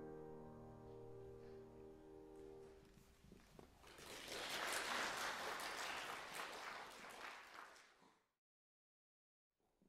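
A final piano chord is held and dies away, then an audience claps for about four seconds. The sound cuts off abruptly to silence near the end.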